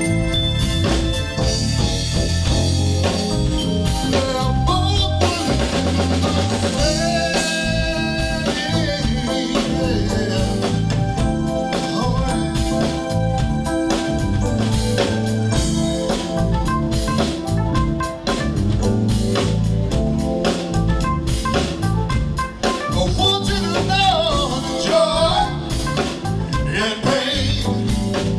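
Live soul band playing an instrumental stretch: drum kit keeping a steady beat under bass and electric guitar, with a wavering lead line near the end.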